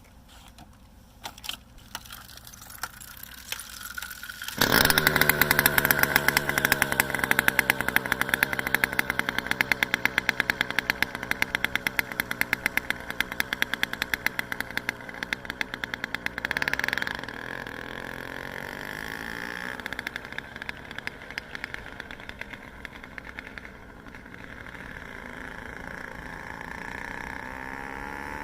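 A motorized bicycle's small engine starts abruptly about five seconds in and runs loud with rapid, even firing pulses. After about 17 seconds it drops to a quieter, steady running.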